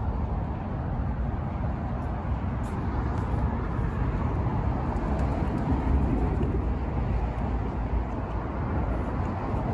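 Steady low rumble of road traffic, with no distinct single event.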